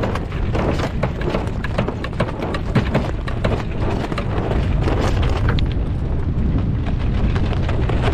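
Wind buffeting the microphone aboard a sailboat under way, with a quick run of clicks and knocks through the first five or so seconds that then stops, leaving a steady low wind rumble.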